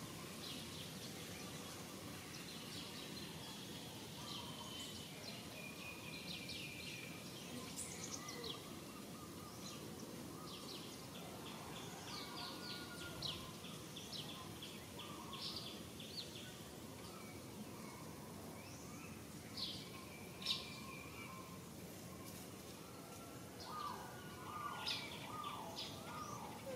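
Outdoor background hum with birds chirping and calling in quick short notes throughout. Near the end a lower, louder run of calls joins in.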